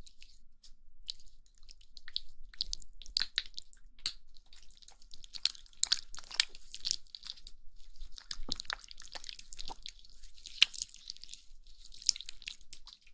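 Oiled hands rubbing and pressing together close to a binaural microphone, making an irregular stream of crackling clicks over a high rubbing hiss.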